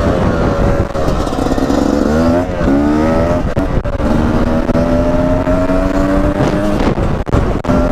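Beta 250 RR two-stroke enduro motorcycle engine under way. It revs up in rising sweeps in the first few seconds, then holds a steady pitch on the throttle.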